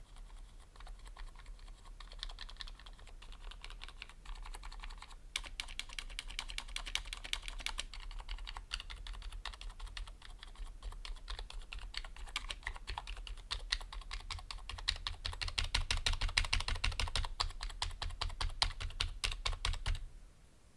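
Typing on a slim NuPhy mechanical keyboard with silent switches: a run of soft, muted keystrokes that speeds up after about five seconds, is fastest and loudest near the end, then stops abruptly.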